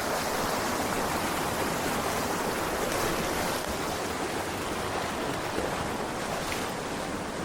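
Arroyo Seco creek water running over rocks: a steady, even rush.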